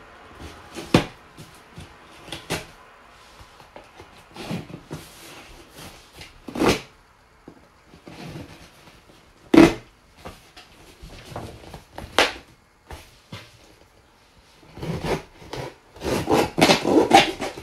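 A knife blade scraping and slicing through packing tape on a cardboard box, with scattered taps and knocks of the box being handled and a busier run of scraping and knocks near the end.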